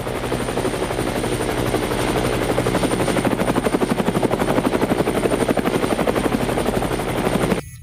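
Helicopter rotor beating with a steady, rapid chopping pulse and a thin high whine over it, cutting off suddenly near the end.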